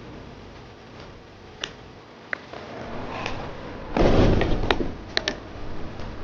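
Tools and parts being handled on a scooter repair bench: scattered light clicks and knocks, then a louder rustling scrape about four seconds in, followed by a few sharp clicks.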